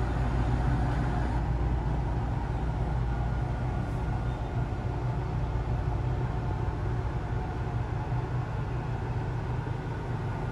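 Steady low mechanical hum inside an enclosed gondola of La Grande Roue de Montréal Ferris wheel.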